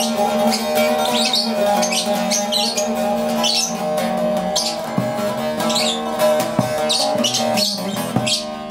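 Bağlama (saz) with a carved mulberry bowl played solo, strummed in quick bright strokes over steadily ringing strings: an instrumental introduction to a Turkish folk song.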